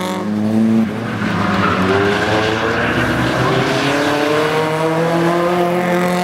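A Nissan S14's engine revving hard in a drift, with its rear tyres squealing as they spin. The revs drop off sharply about a second in, then climb steadily again.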